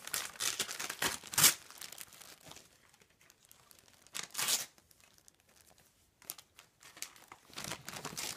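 Gift wrapping paper crinkling and tearing in bursts as a baby's hands pull at a present. The loudest rustle comes about a second and a half in, another around four seconds, and more near the end.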